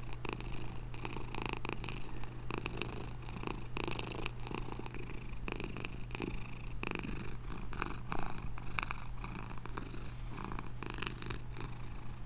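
Kitten purring steadily, with many small wet clicks as it licks and grooms its paw.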